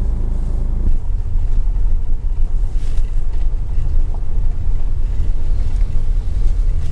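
Low, uneven rumble of road noise inside a car's cabin as it drives along a gravel track, the tyres crunching over the loose surface. The rumble turns rougher about a second in.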